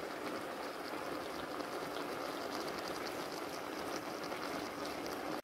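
Carrot strips simmering in melted jaggery syrup in a pot, the syrup bubbling steadily with a fine crackle.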